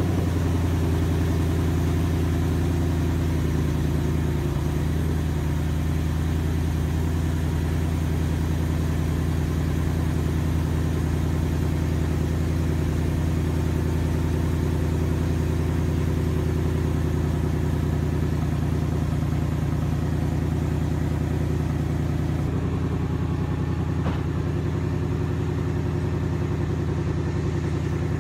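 2016 Mustang GT's 5.0 V8 idling steadily through its exhaust just after a cold start, with a slight change in its note about 22 seconds in.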